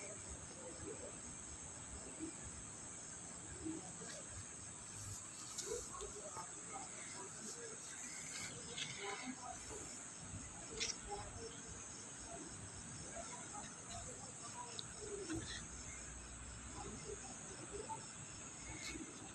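Crickets chirring steadily: a continuous high trill with a fast, even pulse. Faint scattered clicks and rustles sit beneath it.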